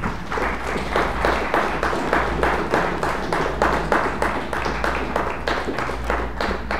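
Congregation applauding with steady hand clapping.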